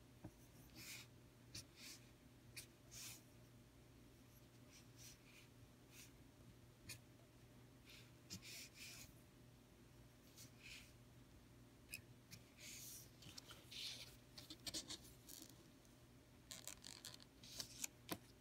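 A calligraphy pen nib scratching on paper in short, separate strokes as vowel marks are added to Arabic lettering. The strokes are faint, with a steady low hum underneath.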